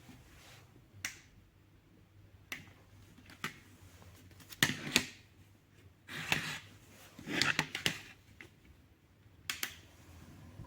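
Plastic clicks and knocks from handling a fan's parts: a scattered series of sharp clicks, the loudest pair about halfway through, with two short rustling stretches soon after.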